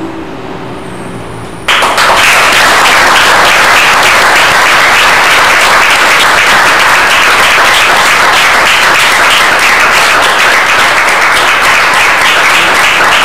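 The last sustained note of the song and piano fades, then audience applause breaks out suddenly a little under two seconds in and carries on loud and steady, many hands clapping at once.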